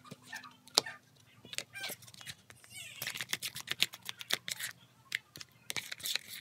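Thick, sticky slime being stirred and folded in a plastic bowl, making irregular wet clicks and squelches as the activator is mixed in and the slime starts to come together.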